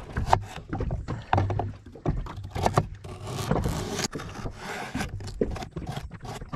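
Kitchen knife chopping and slicing a raw carrot on a wooden cutting board: an uneven run of sharp knocks as the blade cuts through the carrot onto the board.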